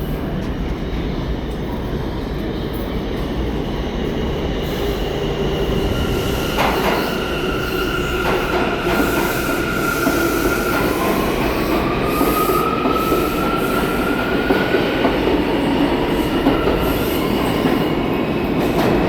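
New York City subway train running along the track with a steady rumble. Steel wheels squeal in long drawn-out tones from about six to fifteen seconds in, one gliding slowly upward, and there are two sharp clacks around seven and eight seconds in.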